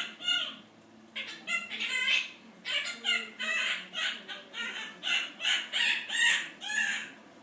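Quaker parrot (monk parakeet) giving a rapid run of short, harsh, high-pitched squawks and chatter, about two a second, with a brief pause about a second in.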